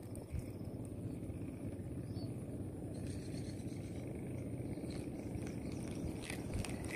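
A steady low rumble, with a few faint ticks near the end.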